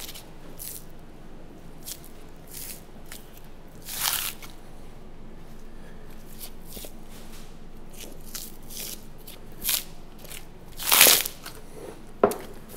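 Butcher's knife slicing through the firm fat cap of a beef rib section as the fat is peeled back, in scattered short slicing strokes. The loudest stroke comes about eleven seconds in, followed by a sharp knock near the end.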